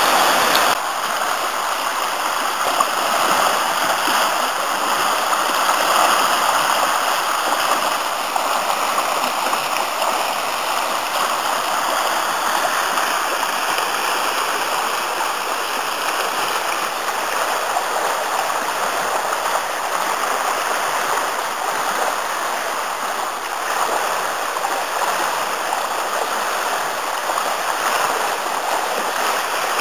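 The Afon Artro in spate after heavy rain: a steady rush of fast-flowing river water. It is louder for the first second, where it pours white over rapids, then drops a little and stays even.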